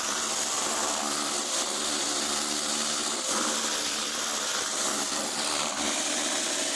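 Ryobi 2500 PSI electric pressure washer running steadily: the motor and pump hum under the hiss of the high-pressure water jet spraying the stairs.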